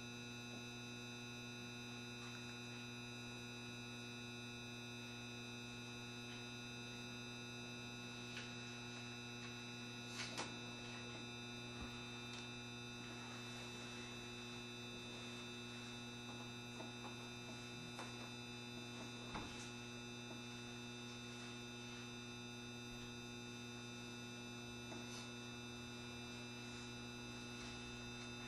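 Steady electrical hum with several fixed tones inside a 7200 series electric train car that is not moving, with a few faint knocks.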